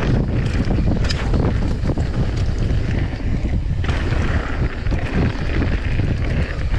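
Wind buffeting the microphone of a camera on a moving mountain bike, a heavy steady rumble with a scatter of short knocks and rattles from the bike running over a rough dirt trail.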